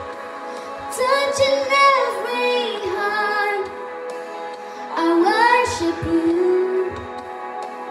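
A girl singing a slow worship song ('You are here, touching every heart… I worship you') into a microphone over sustained backing chords. There are two long sung phrases, the second starting about five seconds in.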